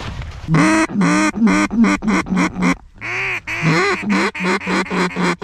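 Mallard duck call blown in two runs of loud, close hen-mallard quacks, about a dozen notes in all, with a short break near the middle.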